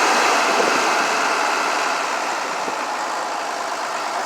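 McCormick tractor engine running steadily.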